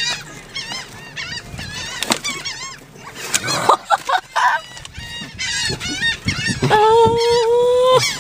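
A flock of gulls calling over one another in rapid, wavering squawks as they crowd in to snatch cheese balls from a hand. Near the end a steady held tone lasts about a second and is the loudest sound.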